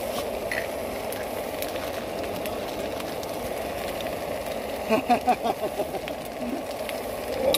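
Camping gas stove burner running steadily under a pan of food. About five seconds in, a spoon scrapes and stirs through the pan in a quick run of strokes.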